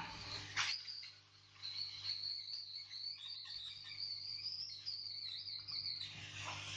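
A high, wavering animal chirping trill in the background that starts about one and a half seconds in and lasts about four seconds, over a low steady hum. A sharp click comes just after the start.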